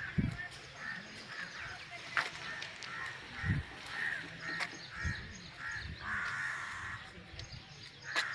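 Birds calling outdoors: a run of short calls repeating about twice a second, with a longer call about six seconds in. A few low thumps and sharp clicks are mixed in.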